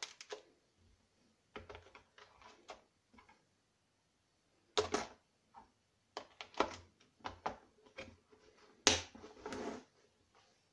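Steel bits, sockets and tool parts of a 43-piece screwdriver set clicking and clacking into their yellow plastic tray in short irregular bursts, with the loudest clatter about three quarters through as the clear plastic case is shut.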